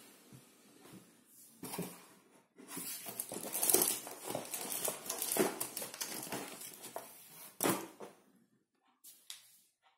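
Rustling and bumping of a person shifting and reaching about, picked up close by a clip-on microphone rubbing against his shirt, with a couple of sharp knocks, one just before 2 s and one near 8 s.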